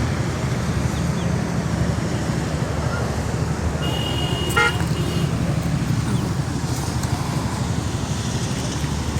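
Hailstones pelting down in a steady, dense clatter, with a brief high-pitched tone about four seconds in.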